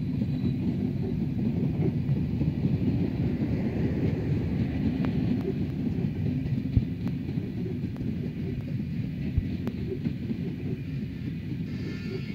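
Bangladesh Railway intercity passenger train's PT INKA coaches rolling past and away: a steady low rumble of wheels on rail with a few sharp clicks, slowly fading.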